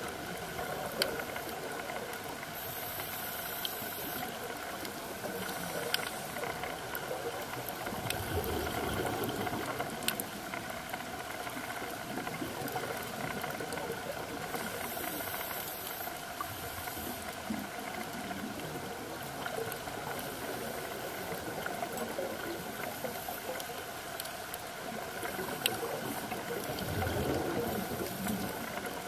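Underwater ambience on a reef: a steady bubbling hiss with scattered sharp clicks, and two louder low rushes of scuba exhaust bubbles, about eight seconds in and again near the end.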